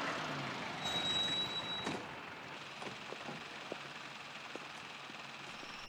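Minibus pulling away: a rush of engine and road noise, loudest for the first two seconds and then fading to a low hiss with a few faint ticks.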